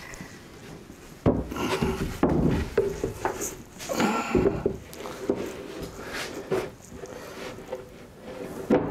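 A large wooden shelf-top panel knocking and sliding against a wooden shelf frame as it is set down and shifted into place. It starts with a sudden knock about a second in, followed by a few seconds of scraping, then scattered lighter bumps.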